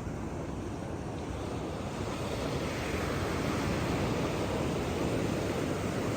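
Sea waves washing onto a beach, the surf swelling louder a little before halfway through as a wave comes in.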